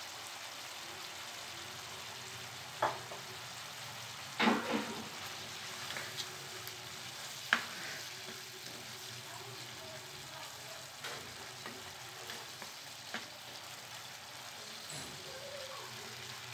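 Chicken, baby corn and peppers simmering in a thin sauce in a non-stick wok, with a steady sizzle and bubble, while a wooden spatula stirs through them. There are a few sharp knocks of the spatula against the pan, the loudest about three, four and a half and seven and a half seconds in.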